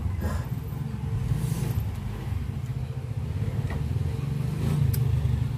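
A steady low rumble, with a few faint rustles and a short click about five seconds in.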